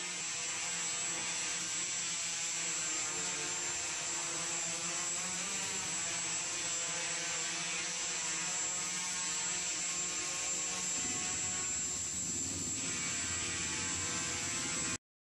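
Hexacopter's six motors and propellers humming steadily in a hover, the pitch wavering a little as it holds position; the sound cuts off abruptly near the end.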